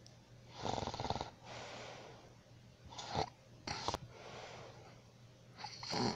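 A sleeping person snoring: a longer, fluttering snore about a second in, followed by a softer breath out, then shorter snorts around the middle and near the end.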